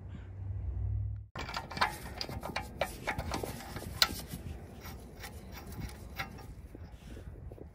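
A metal hand tool clicking and scraping as it is worked by hand into the rear axle hub, with irregular small clinks and rubbing. A low wind rumble comes before it, and stops suddenly about a second in.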